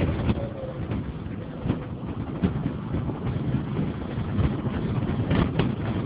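Engine and road noise from a moving vehicle, with wind buffeting the microphone and a few short knocks or rattles, two close together near the end.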